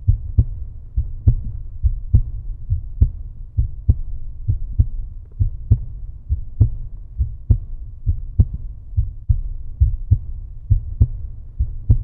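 Slow, heavy low thumping in a steady heartbeat-like pulse, a strong beat a little under once a second with softer beats between, over a low rumble, from the end-card animation's sound effect.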